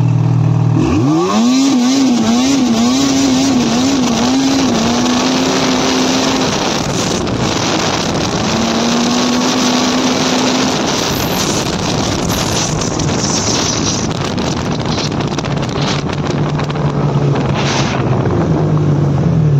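Ski-Doo E-TEC 800 two-stroke snowmobile engine revving up hard from idle about a second in, its pitch wobbling up and down for a few seconds as it stumbles under full throttle (the sneezing the owner is chasing), then running at high revs and dropping back to idle near the end.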